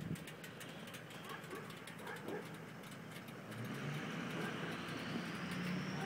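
Faint outdoor background noise with no horn or engine: a low hum that grows a little louder about halfway through, and a faint high tone slowly rising in pitch.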